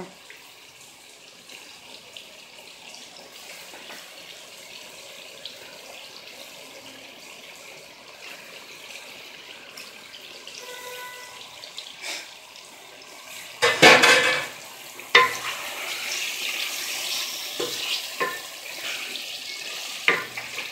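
Chicken pieces frying in hot tomato masala: a faint sizzle, then a loud burst of sizzling about two-thirds of the way in, followed by steady sizzling with a few knocks of a wooden spoon against the aluminium pot as the chicken is stirred.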